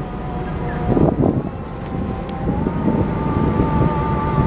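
Wind buffeting the microphone over a low rumble, with a faint steady whine that steps slightly up in pitch about halfway through.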